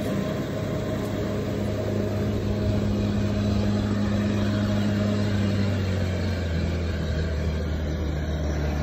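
SHERP amphibious ATV's diesel engine running steadily while its large low-pressure tyres churn through river water, throwing spray. The engine note drops slightly about two-thirds of the way in.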